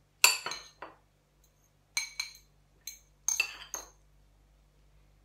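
Metal serving fork and spoon clinking against white ceramic plates and a bowl as salad is served: a run of sharp clinks that stops about four seconds in.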